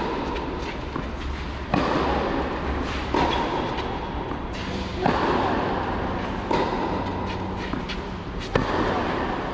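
Tennis ball struck back and forth by rackets in a rally on a clay court: five sharp hits about one and a half to two seconds apart, each echoing briefly under the hall's roof.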